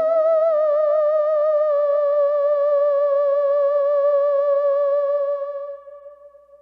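Synthesized sci-fi UFO sound effect: an electronic tone with a fast warbling vibrato and many overtones, held at one pitch and fading out about six seconds in.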